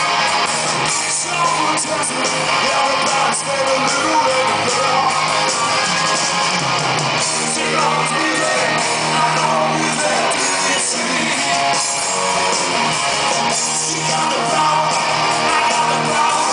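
Live rock band playing loudly in an arena, heard from within the audience: electric guitars, bass and drums, with a lead vocal over them.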